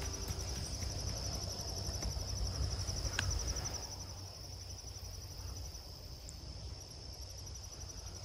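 Crickets trilling steadily, a continuous high pulsing chirr, over a low rumble.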